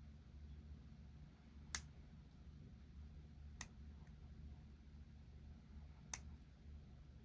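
Three faint, sharp clicks, a couple of seconds apart, of steel lock picks working the pin tumblers inside a Dorma pin-tumbler lock cylinder.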